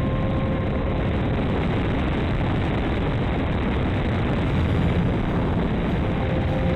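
Dynam P-51 radio-control plane in flight, its electric motor and propeller heard as a steady noisy rush of air with a faint steady tone that fades about halfway through.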